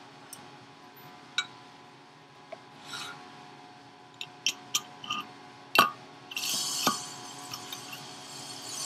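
Small metal clicks and scraping as a pick works in the bore of a turbocharger bearing housing, with a sharper click about six seconds in. It is followed by a rasping metal-on-metal rub as the turbine shaft goes into the housing.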